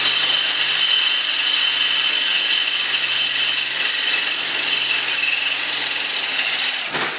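Angle grinder grinding the edges of painted steel down to clean metal for welding: a steady, loud grinding hiss with a high whine that stops near the end.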